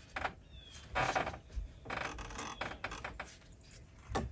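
Hand work on a car engine: four or so short bursts of rustling and clicking as tools and parts are handled.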